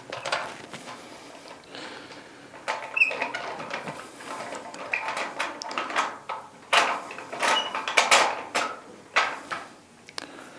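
Metal parts being handled as a BMX crank arm is threaded onto its spindle at the bottom bracket: irregular light clicks, taps and short scrapes, a few sharper knocks towards the middle.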